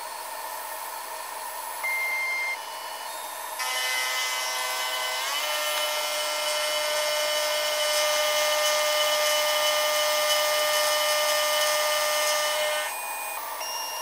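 CNC-converted PM-25MV benchtop mill's end mill cutting an aluminium soft jaw: a steady spindle whine under the cutting noise. It gets louder about four seconds in, steps up in pitch a second later, and eases off near the end.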